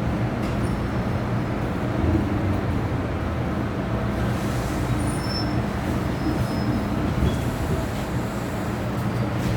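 Steady low rumble and hum inside the cabin of an MTR M-train, with a few faint, brief high squeals in the middle.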